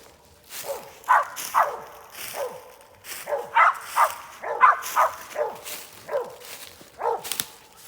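A squirrel dog barking over and over at a tree, about two barks a second: treeing, the sign that it has a squirrel located up the tree, here a den tree.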